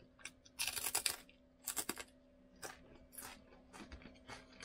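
Faint, crisp crackles of the fried beer-batter crust on a whole fish being picked apart and eaten. They come in short bursts, the loudest about a second in and near two seconds, over a faint steady hum.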